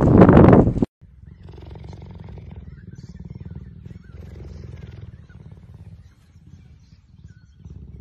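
Loud wind buffeting the microphone for the first second. Then a cheetah purring steadily, a low, fast-pulsing rumble that swells and eases with each breath.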